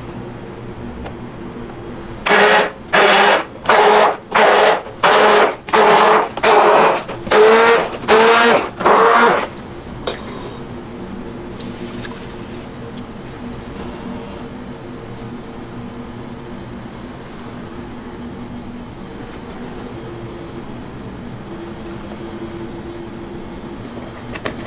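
An electric kitchen blender pulsed about ten times in quick half-second bursts, its motor spinning up with a rising whir each time, mixing raw eggs. Afterwards a low, steady hum continues.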